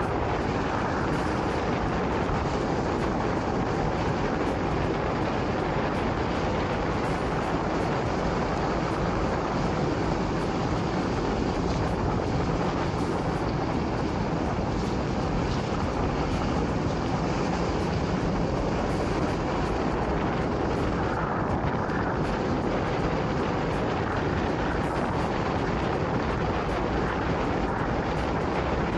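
Steady rush of wind over the microphone mixed with tyre and road noise from an electric scooter riding at speed on wet pavement, with no distinct events.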